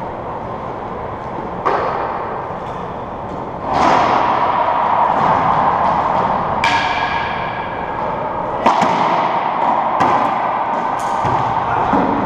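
Racquetball ball strikes: about six sharp smacks a second or two apart, each echoing in the enclosed court, over a steady hum.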